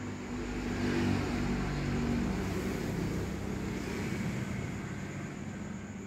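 A motor vehicle engine passing by, its sound swelling to a peak about a second in and then slowly fading away.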